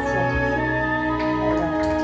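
Slow music with long held notes. Light clapping starts to come in over it about a second in.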